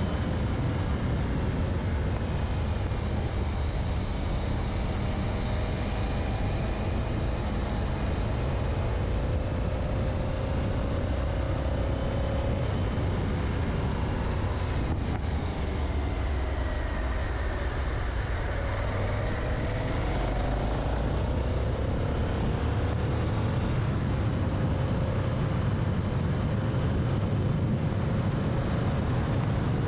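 Honda Africa Twin's twin-cylinder engine running steadily on a ride along a concrete lane, its pitch drifting slightly up and down with small changes in speed. Wind noise rushes over the onboard microphone.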